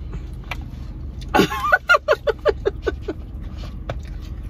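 A woman laughs in a quick run of short, falling 'ha' sounds that starts about a second and a half in, over the steady low rumble of the car's idling engine.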